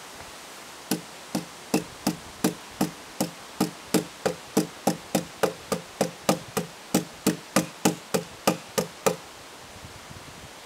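A run of about two dozen sharp knocks at a steady pace, about three a second, starting about a second in and stopping about nine seconds in.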